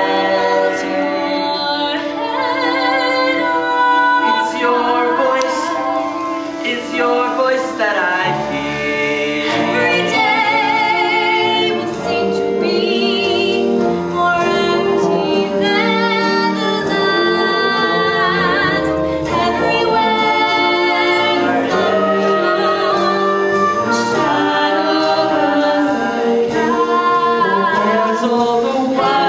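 Musical-theatre song sung with instrumental accompaniment, the held notes wavering with vibrato.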